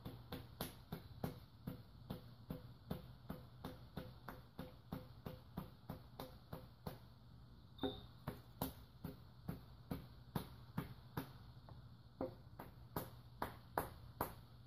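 Light, rapid taps of a rubber-gripped hammer handle driving pistons down into the cylinder bores of a Toyota 1ZZ-FE aluminium block, about three taps a second. There is a brief pause with a high ping a little before eight seconds in, and the loudest taps come near the end.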